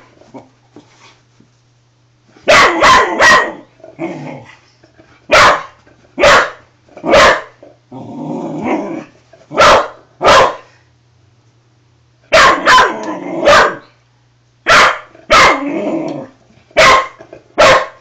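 A springer spaniel barking repeatedly in short bunches of two or three sharp barks, with a longer, lower growl about eight seconds in: wary, defensive barking at a toy RC helicopter she does not like.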